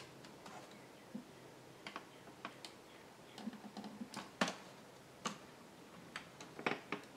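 Scattered light clicks and taps of fingers on the plastic face of a 2005 Chevrolet Suburban instrument cluster as gauge needles are pressed back onto their stepper-motor shafts. The clicks come irregularly, about a dozen of them, with two louder ones about halfway through and near the end.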